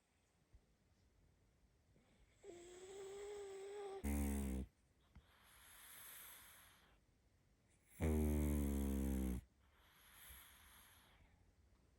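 Sleeping pug puppy snoring: two loud snores about four seconds apart, the first led in by a thin whistle, with softer breathy breaths after each.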